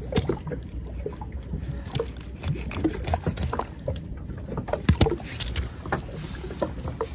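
Small fish being cut into bait pieces against a boti, a curved fish-cutting blade, and handled by wet hands: a run of irregular small clicks.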